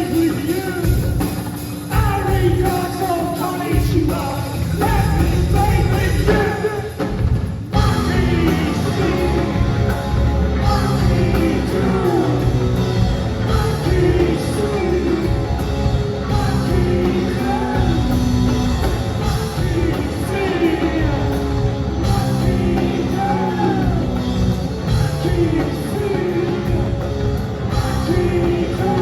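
Post-punk rock band playing live with sung vocals, recorded from the audience in a large hall. The band thins out briefly about seven seconds in, then the full band crashes back in and carries on with the singing.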